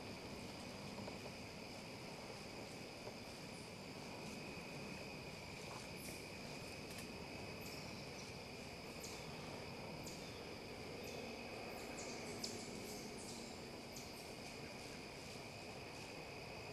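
A steady chorus of crickets trilling high, with faint scattered ticks and rustles through the middle stretch.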